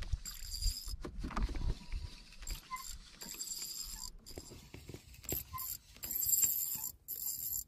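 Fishing reel being cranked in short spells, its gears giving a high whine that starts and stops several times, with small knocks of handling against the boat.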